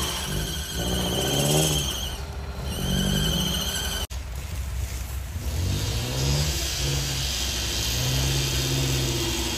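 Off-road 4x4 engine revving in repeated surges that rise and fall in pitch while the vehicle is winched through a mud hole. The sound drops out for an instant about four seconds in.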